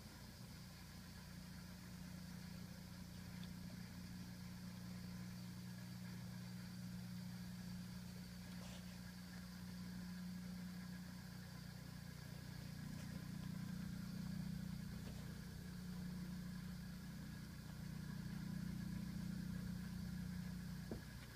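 Steady low mechanical hum with a few faint clicks, swelling louder a little past the middle and again near the end.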